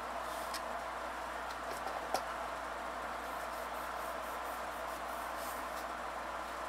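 Steady background hiss with a sharp click about two seconds in, then a run of faint, quick strokes of a plastic scraper card drawn across a metal nail-stamping plate to clear off the polish.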